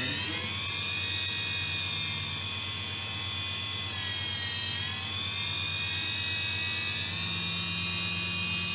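High-speed spindle of a KERN 1016 CNC milling machine running with a high, many-toned whine. The pitch is still rising at the start, dips for about a second around four seconds in, then climbs back and holds steady over a low steady hum.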